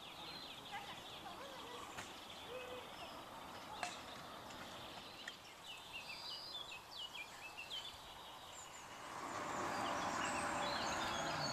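Wild birds chirping and singing in the trees, a scatter of short high calls. About nine seconds in, a broad rushing noise swells up and stays louder to the end.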